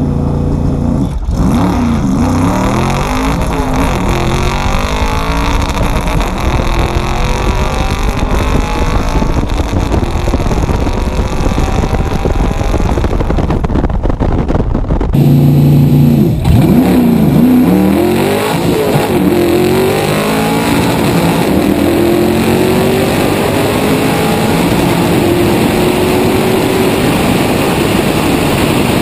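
Shelby Cobra's V8 at full throttle on a drag-strip pass, the revs climbing and dropping back at each shift. About halfway the sound cuts abruptly to a second pass: the engine holds steady revs for a moment, then pulls up through the gears again.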